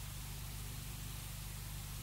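Steady hiss with a low, unchanging hum beneath it: the recording's own background noise.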